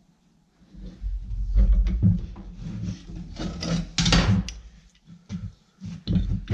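Irregular scraping and knocking of steel stock being handled at a blacksmith's bench or forge, with a low rumble under it. The loudest scrape comes about four seconds in, and a sharper knock comes near the end.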